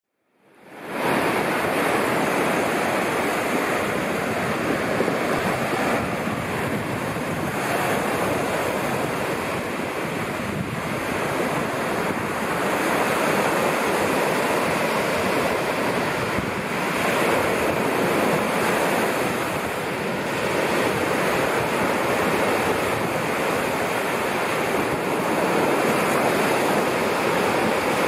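Small waves breaking and washing up a sandy beach in a steady rush of surf that swells and eases, with wind on the microphone. It fades in over the first second.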